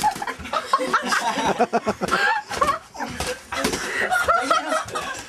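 A group of teenage boys laughing and hollering, with the smacks of boxing-glove punches landing among the voices.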